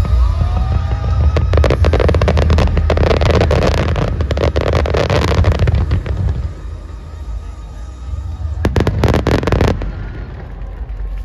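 Fireworks crackling in dense rapid strings for several seconds, then a second, shorter burst of crackles near the end, over loud music with a heavy bass that fades out about halfway through.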